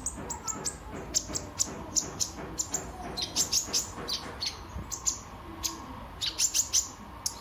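Kolibri ninja sunbird singing: quick runs of short, sharp, high-pitched chirps broken by brief pauses.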